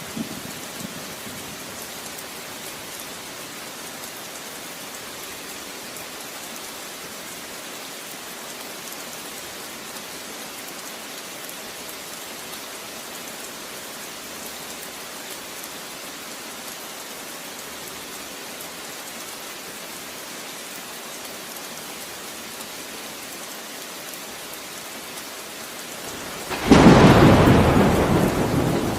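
Steady rain falling, an even hiss. Near the end a loud clap of thunder breaks in suddenly and rumbles on, slowly fading.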